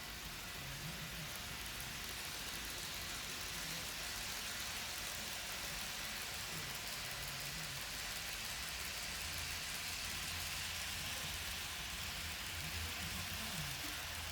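Steady, even hiss of the showroom with N gauge model trains running on the layout, and a faint low hum that comes and goes.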